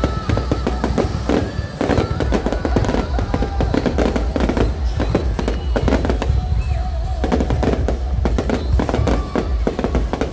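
Fireworks going off in a dense, rapid run of bangs and crackles over a low rumble, with music playing underneath.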